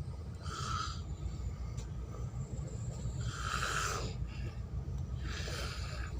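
A sleeping person snoring: three snores about two and a half seconds apart, over a steady low rumble.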